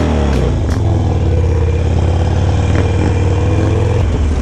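Harley-Davidson Sportster 1200 Roadster's air-cooled V-twin engine, heard from the rider's seat, dropping in pitch in the first half second as the bike slows. It then runs steadily at low speed, and its note changes again near the end.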